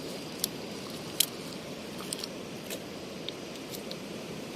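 A steady low rush of sea surf, with several sharp, thin clicks scattered over it; the two loudest come about half a second and just over a second in.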